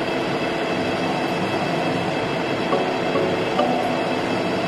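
Metal lathe running steadily while the tool bit of a ball-turning attachment cuts a ball on the end of the spinning workpiece.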